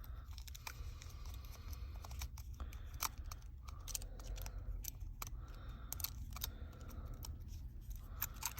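Irregular light clicks and scratchy scraping of small repair tools against the Samsung Galaxy S8 Plus's logic board and frame as the board is worked loose, over a steady low hum.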